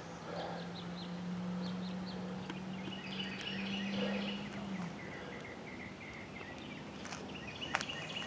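Outdoor ambience with faint scattered bird chirps. A low steady hum rises slightly and stops about five seconds in. A few sharp clicks come near the end.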